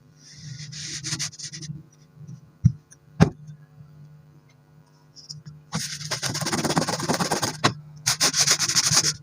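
A blade slicing through kinetic sand with a crisp crunching scrape. It comes in bursts: a short stretch near the start, then a longer crunching stretch over the last few seconds. Around the 3-second mark there are two sharp knocks half a second apart.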